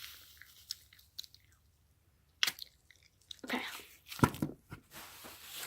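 Close handling sounds: scattered crinkling and crunching crackles, with a sharp crackle about two and a half seconds in and a louder rustling stretch around three and a half to four and a half seconds in.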